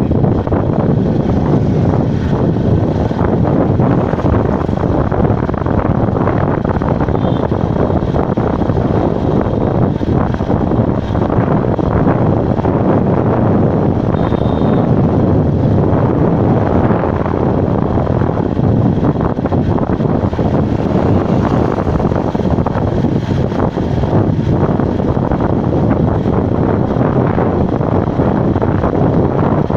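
Steady rush of wind over the microphone mixed with engine and tyre noise from a vehicle travelling at speed along a road.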